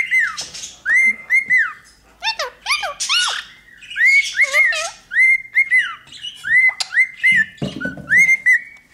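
Pet parrots, a cockatiel and a blue Indian ringneck parakeet, whistling and chirping. A short rising-and-falling whistle repeats over and over, about once a second, mixed with quick higher chirps.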